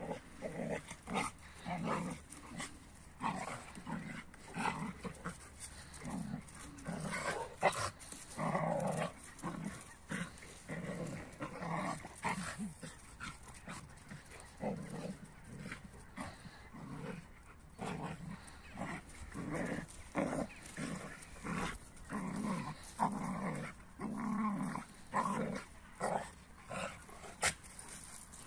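A Kuvasz and an Icelandic Sheepdog play-fighting, making a run of short, low dog vocal sounds every half second to a second as they wrestle and chase. A couple of sharp knocks stand out, one about a third of the way in and one near the end.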